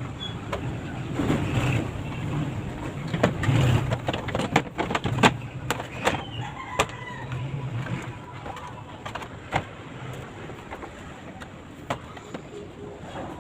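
Irregular clicks and knocks of parts being handled while working on a washing machine, thickest in the first nine seconds, over a low rumble that swells now and then, with faint bird chirps in the background.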